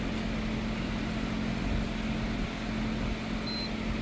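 Steady machinery hum with a constant low drone, and one short high-pitched electronic beep about three and a half seconds in.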